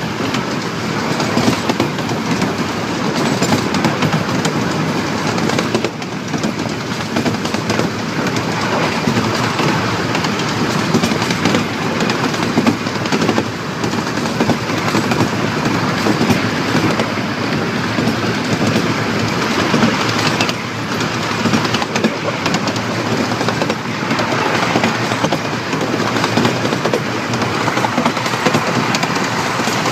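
Small-gauge steam railway train rolling along its track: steady wheel-on-rail noise with a continuous clickety-clack of the wheels over the rails.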